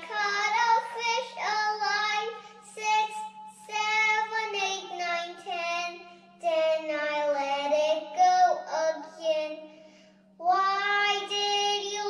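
A young girl singing karaoke into a microphone, a string of high-pitched sung phrases with short breaks about six seconds in and again near ten seconds. A steady low hum runs underneath.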